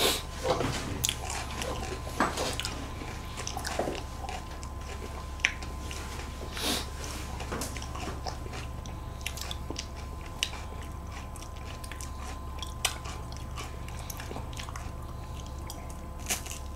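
Biting and chewing the crisp wafer of a tiramisu World Cone ice cream cone: scattered short crunches with chewing in between.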